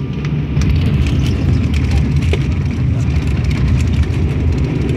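Cabin noise of an ATR turboprop airliner on its landing roll: a loud, steady low rumble from the engines, propellers and wheels on the runway, growing a little louder about half a second in, with frequent light clicks and rattles.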